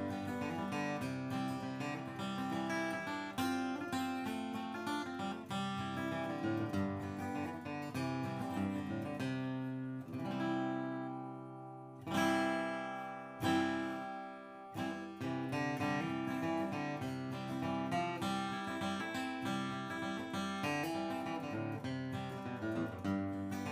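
Martin D-28 Authentic 1937 dreadnought acoustic guitar, rosewood back and sides, played with a flatpick: a run of picked single notes and chords. About ten seconds in, a chord is left to ring and fade. Then two hard strummed chords ring out, a second and a half apart, before the picking resumes.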